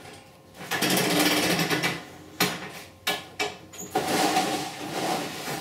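DeWalt circular saw running and cutting through vinyl siding on a track saw table, in two stretches, with a few sharp clicks and knocks between them about halfway through.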